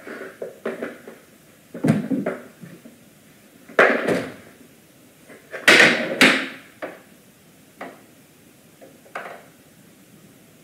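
Irregular knocks and clattering bumps in small clusters, the loudest about six seconds in, then fewer and fainter ones.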